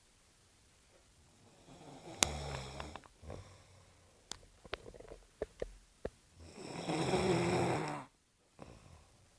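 A sleeping person snoring. About two seconds in there is a snore with a sharp click, then a few short clicks, then one long loud snore that cuts off suddenly near the end.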